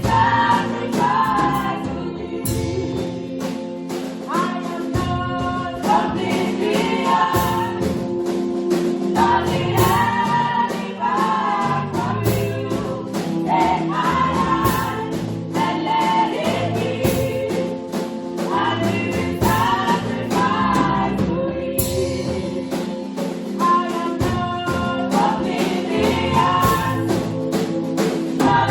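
Church choir singing a gospel worship song over held instrumental chords and a steady percussive beat.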